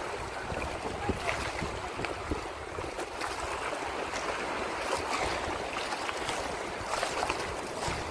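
Wind buffeting the microphone over the splash and wash of sea water, with no engine or voices.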